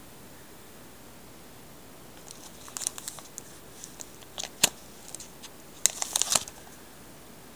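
Plastic sleeves of a CD case crinkling and rustling under fingers handling the discs, with sharp clicks and scrapes. It starts about two seconds in, has one loud click a little past the middle and a quick cluster of clicks near the end.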